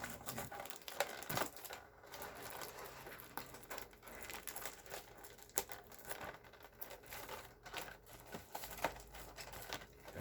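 Packaging crinkling and crackling in the hands as a sealed hair colour shampoo package is handled and opened, with irregular small clicks and rustles throughout.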